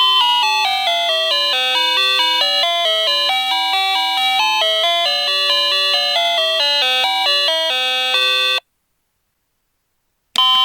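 Daiso call chime playing an 8-bit style electronic melody of quickly stepping notes, which cuts off abruptly about eight and a half seconds in. After a silent gap, a switch click and the next chime melody start near the end.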